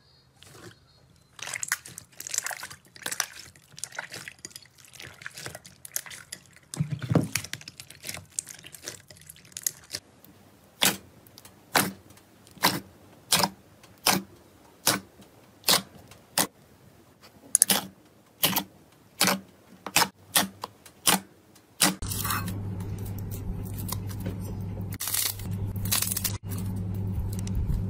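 Slime being squeezed and poked, making wet, sticky crackles and squishes. First comes a stretch of irregular crackling, then a run of separate squelches at roughly one a second. Later a steady low hum sets in under further crackles.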